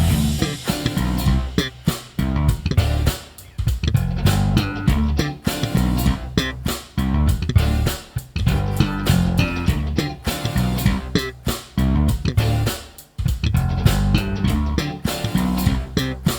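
Zeline J5 five-string jazz-style bass guitar, with a white ash body and maple neck, played in a busy line of short, sharply attacked notes with brief breaks between phrases.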